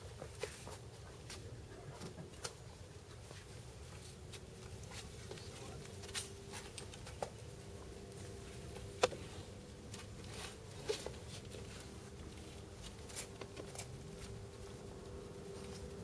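Quiet ambience: a faint steady hum with a few scattered small clicks and scuffs, the sharpest click about nine seconds in.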